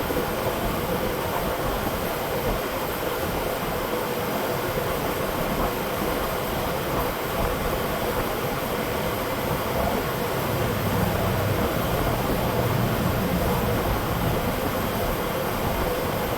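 Steady blowing noise with a constant hum from a large shop fan running.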